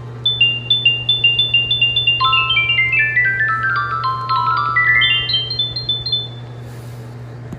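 Emergency-alert tone made of quick, chime-like electronic notes in stepping runs, mostly moving downward, over a steady low hum. The chimes stop about six seconds in, leaving the hum alone.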